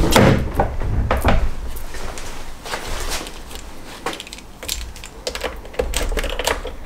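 Car keys jingling and clicking as they are handled and fitted into the ignition lock, among scattered knocks and clicks of handling in the car's interior. There is no starter cranking or engine running.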